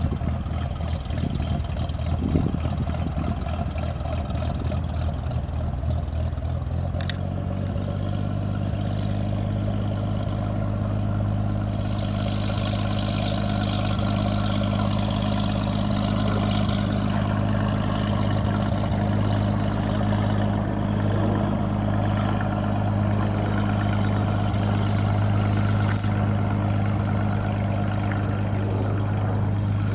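Light-aircraft piston engine and propeller running at low power on the ground as a Cessna taxis, a steady low drone. About seven seconds in the engine note steps up and grows stronger, then holds steady.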